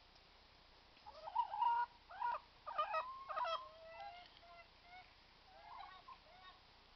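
Hens calling: a run of loud, pitched calls, some gliding in pitch, from about a second in to about four seconds, then a few fainter calls near the end.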